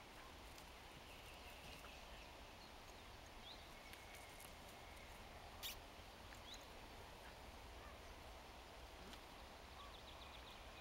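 Near silence outdoors: a faint steady low rumble with faint distant bird chirps, and one short click about halfway through.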